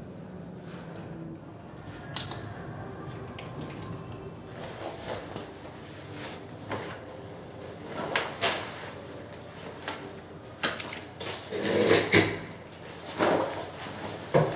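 Clothing and a bag rustling and bumping as a denim jacket is pulled on and a shoulder bag slung on, in a series of swishes and knocks that grow louder in the second half. A short ringing click about two seconds in.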